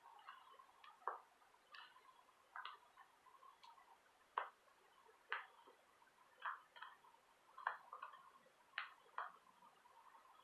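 Faint sharp clicks or taps at uneven intervals, about one a second.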